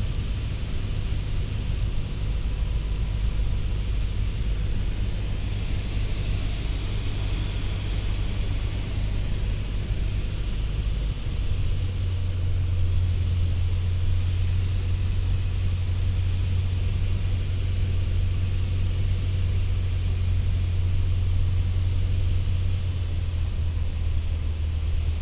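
Cabin drone of a Beechcraft Sundowner in flight on final approach: its four-cylinder Lycoming engine and propeller running steadily, with air rushing past the cabin. About eleven seconds in the low engine note shifts and gets slightly louder.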